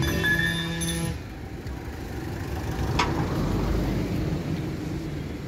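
A steady hum with several even tones, typical of an engine, stops about a second in. About three seconds in comes a single sharp clank, then the rough rumble of a heavy spare truck tyre being rolled over asphalt.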